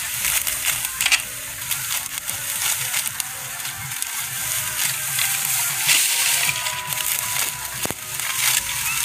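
Dry wheat stalks crunching and rustling as they are gathered by hand and cut through near the ground with a sickle, in repeated strokes. Music plays faintly in the background.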